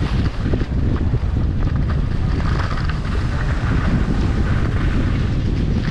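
Wind buffeting the microphone of a moving skier's action camera as a low, uneven rumble, over the steady hiss of skis sliding across snow.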